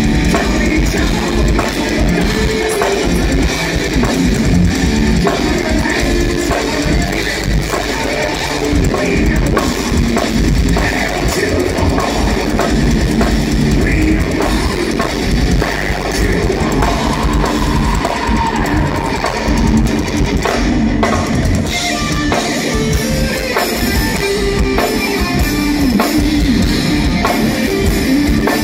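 A thrash metal band playing live: heavily distorted electric guitars over fast, driving drums with rapid bass-drum hits, loud and steady throughout.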